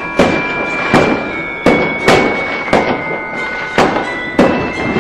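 A string of firework bangs, about seven sharp reports at uneven intervals, with steady high whistling tones sounding under them.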